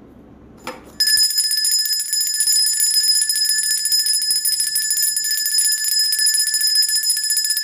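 Metal handbell shaken continuously, its clapper striking rapidly so the bell rings on with a steady high tone. It starts abruptly about a second in.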